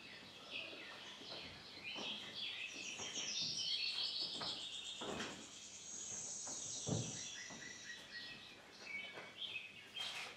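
Many birds chirping and twittering in a dense, continuous chorus. Light knocks of footsteps on a wooden stage floor sound through it, with a louder thump about seven seconds in.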